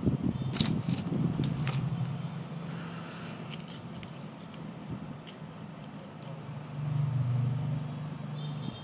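A low steady motor hum that swells again near the end, with scattered light clicks and crackles as a knife cuts through crisp roast duck skin and meat.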